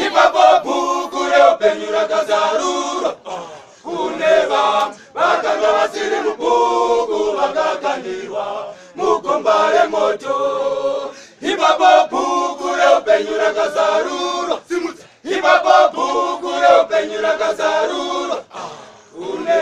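Men's choir singing a cappella in Shona, in phrases of three to four seconds separated by short breaths.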